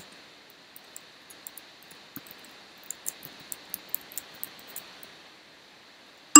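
Someone typing a password on a computer keyboard: about a dozen light, irregular key clicks over roughly four seconds, over a faint steady hiss.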